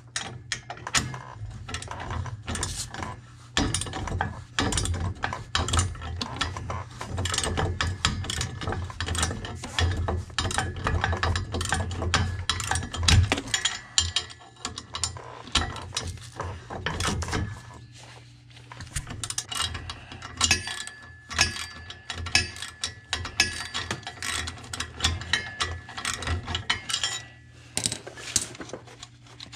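Hand ratchet wrench clicking in quick, uneven runs as bolts are worked.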